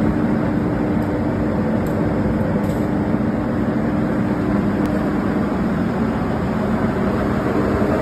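Plastic film agglomerator running: a steady machine drone with a low, even hum.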